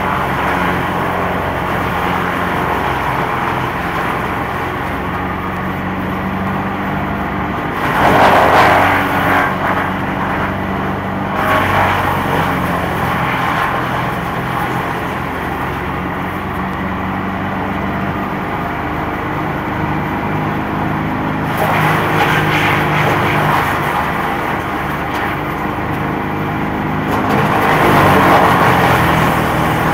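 Trailer-mounted mobile wood chipper with a 41 hp combustion engine running steadily. Loud bursts of chipping as leafy branches are fed through its hydraulic feed roller come about 8 seconds in and again from about 21 seconds in.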